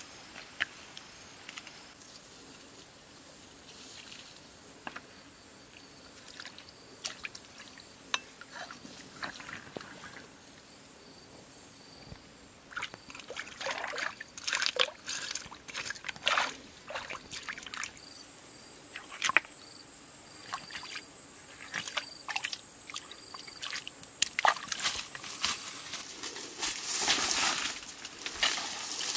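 Shallow stream water splashing and sloshing as hands scoop and grope in it, in irregular bursts around the middle and again later, over a steady high-pitched insect drone.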